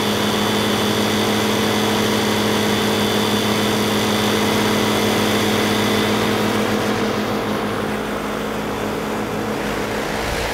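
A large machine being warmed up, running with a steady hum made of several held tones; it eases off slightly about seven seconds in.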